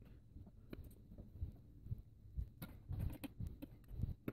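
Faint handling clicks and knocks of 3D-printed PLA plastic pieces and a small screw being fitted and turned with a screwdriver, with low bumps against the countertop and a sharper click at the end.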